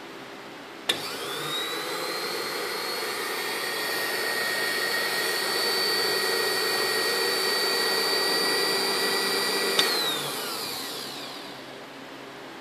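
Electric motor of a COBEPAN ice-cream mixer switched on with a click, whining up to speed and then running steadily. A second click switches it off, and the motor winds down with a falling whine.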